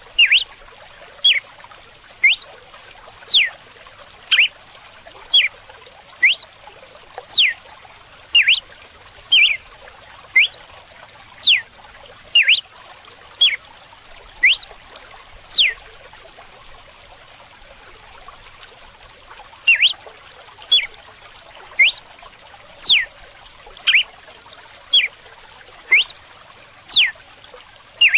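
Red-cowled cardinal (galo-de-campina) singing its 'açoite' song: a string of short, sharp whistled notes about one a second, some sweeping down steeply and others up, with a pause of a few seconds past the middle. Running water trickles steadily underneath.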